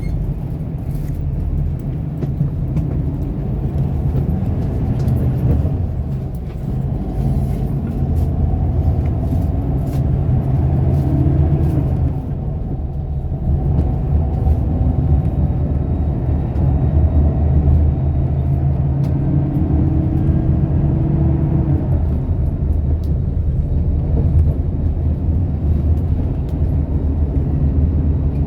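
Steady engine and road rumble of a moving city bus, heard from inside the cabin, with a low hum and a brief easing of the noise about thirteen seconds in.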